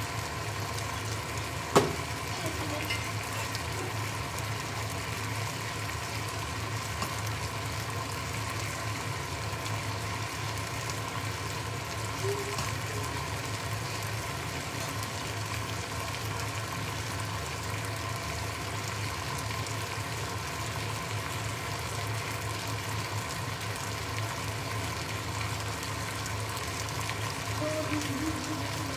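Food sizzling steadily in frying pans on the hob, with a single sharp click about two seconds in.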